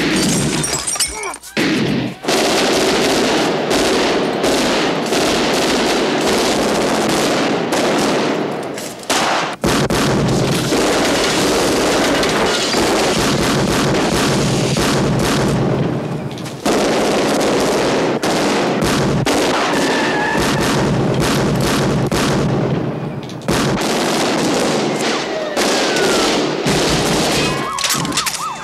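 Rapid, near-continuous gunfire from pistols and automatic weapons in a street shootout, with a few short breaks.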